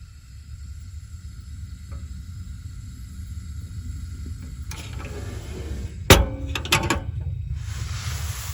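Steady low rumble, then a burst of hiss about five seconds in, followed by a quick cluster of sharp mechanical clicks and rattles about six seconds in, and another short hiss near the end.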